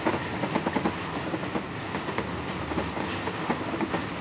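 Wooden spatula scraping and knocking against a pan as a thick, crumbly paneer-and-mango mixture is stirred quickly, a steady run of short scrapes and clicks.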